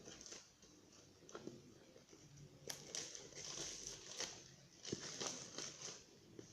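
Quiet rustling and crinkling of a phone's retail packaging being handled and opened, with scattered light clicks and taps, busiest in the second half.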